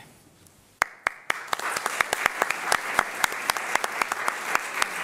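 Audience applauding: a few separate claps about a second in, quickly building into steady, dense applause.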